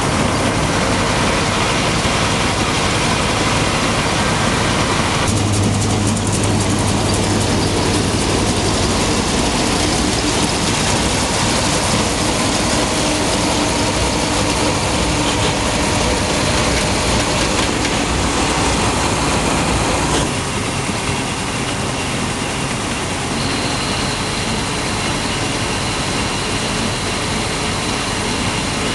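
Pull-type John Deere 360 combine harvester threshing: its drum, shakers, sieves, belts and fan running with a steady, dense mechanical clatter and rush. The sound shifts abruptly about 5 seconds in and again about 20 seconds in.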